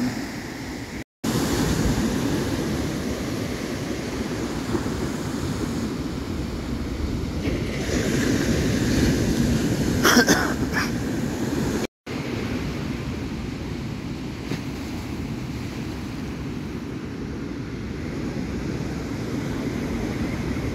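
Ocean surf washing onto a sandy beach, mixed with wind rumbling on the microphone. The sound drops out briefly twice, about a second in and about twelve seconds in, where the recording is cut.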